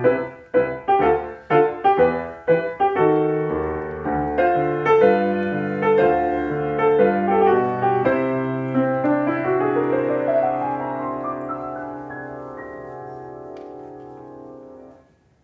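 Grand piano playing: repeated chords struck about twice a second at first, then a slower passage whose held notes gradually fade, the last chord released just before the end.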